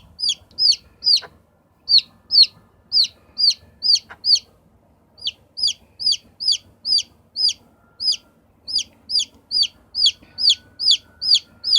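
Newly hatched bantam chick peeping: a run of loud, high-pitched peeps, each a short note that drops in pitch, about two to three a second, with a short break about four and a half seconds in.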